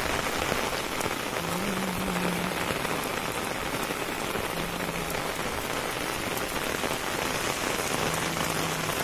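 Steady rain falling on a concrete lane and the fields beside it, an even hiss with no let-up.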